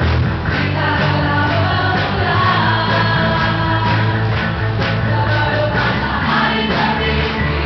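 A song sung by a group of voices over instrumental backing, with steady bass and a regular beat.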